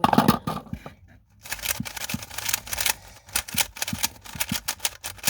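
GAN 11 M Pro magnetic speed cube being turned quickly, its plastic layers clicking and clacking in a fast, uneven stream that starts about a second and a half in.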